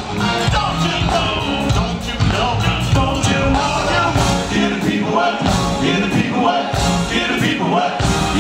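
Live R&B performance heard from the audience: a male lead voice singing into a microphone over a full band with electric bass, keyboards and drums.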